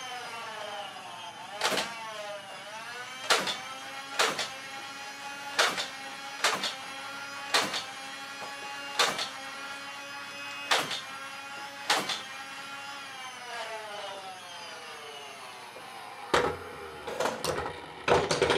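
Handheld rotary tool (Dremel) running with a steady whine whose pitch sags and recovers as it bites into plastic, grinding off small notches in a Nerf blaster so the darts feed without jamming. Sharp clicks come about once a second, and near the end there is a clatter of knocks as things are handled.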